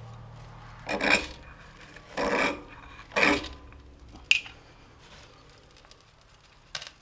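Three rasping strikes about a second apart as a flame is struck to light wood shavings in a woodstove, followed by a sharp click and another click near the end.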